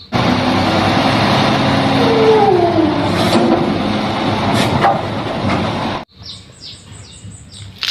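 Recorded truck sound: loud engine noise with a falling whine about two seconds in, starting and stopping abruptly after about six seconds. Quieter high chirps follow, about four a second.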